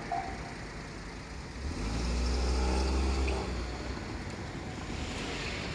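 A road vehicle drives past over the level crossing, loudest between about two and three and a half seconds in, its engine note falling as it goes by, over a steady traffic hum.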